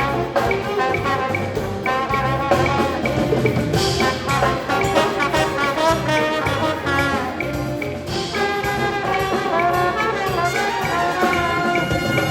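Brass-led jazz ensemble, trumpets and trombones over a bass and drum pulse, playing a swing-style piece.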